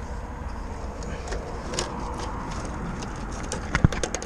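Small clicks and rattles of wiring being handled and a nylon cable tie being fastened, with one sharper click near the end, over a steady low rumble.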